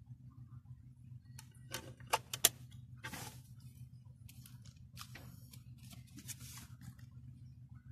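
Hands handling a round film-can CD tin and its contents: a few sharp clicks and taps of the tin about two seconds in, then paper cards and photos rustling and sliding. A steady low hum runs underneath.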